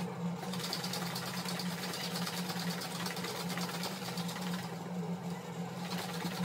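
A plastic shaker cup of water and G Fuel energy-drink powder being shaken hard by hand: the liquid sloshes and the cup rattles in a rapid, steady rhythm, over a steady low hum.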